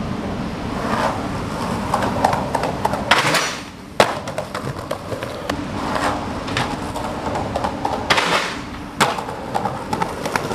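Skateboard wheels rolling on concrete pavement. Twice, about five seconds apart, a short rasping scrape ends in a sharp clack of the board hitting the ground.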